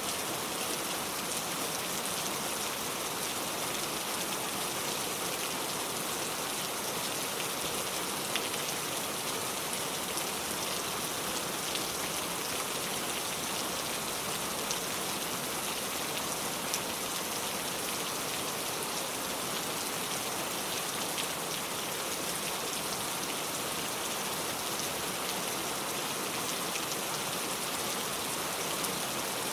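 Steady rain falling: an even hiss dotted with individual drop ticks, a few of them a little louder.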